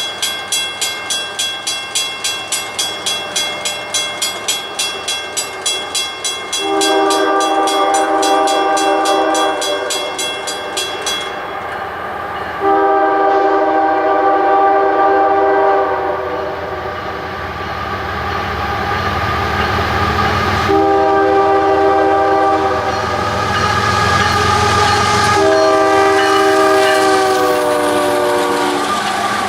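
A grade-crossing warning bell rings rapidly, about two and a half strokes a second, and stops abruptly about eleven seconds in. Meanwhile a multi-chime diesel locomotive horn sounds the crossing signal: long, long, short, long. The last blast drops slightly in pitch as the train passes, and the rumble of the train grows under it.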